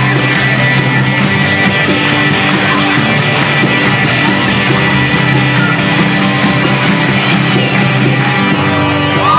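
Live acoustic worship band: strummed acoustic guitars and singing, the music coming to a stop near the end.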